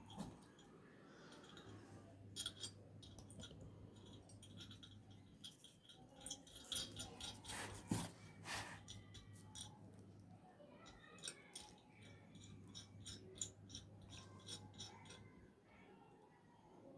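Faint scattered clicks and light taps, as of small parts being handled, over a low steady hum.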